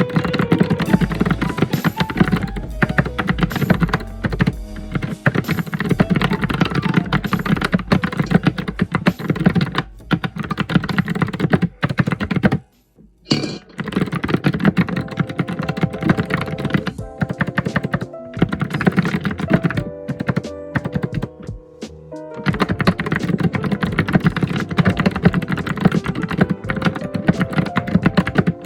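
Fast, continuous typing on a computer keyboard, a dense clatter of keystrokes with a brief pause about halfway through and lighter, sparser typing a little later.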